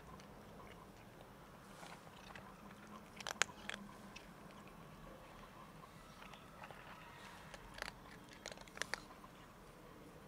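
Black cat crunching dry kibble: faint, irregular chewing crunches, with a few sharper, louder crunches about three and a half seconds in and again near the end.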